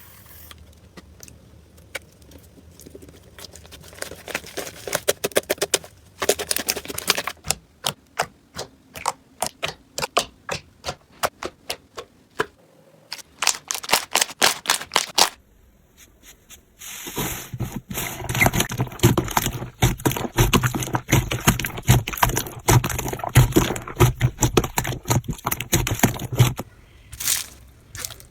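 Slime being pressed and poked, giving rapid crackling and popping clicks. The clicks come in scattered runs at first, then turn into a dense, continuous crackle after a short pause just past the halfway point.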